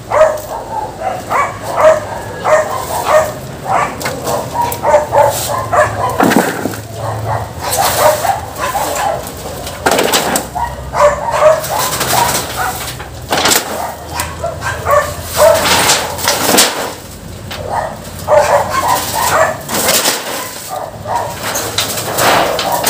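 Dogs barking in quick, repeated runs, broken by several loud, noisy clattering bursts.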